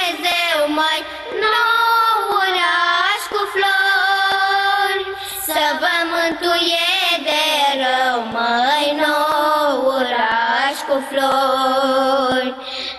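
A group of girls singing a Romanian colindă (Christmas carol) together, the melody gliding up and down in long held notes.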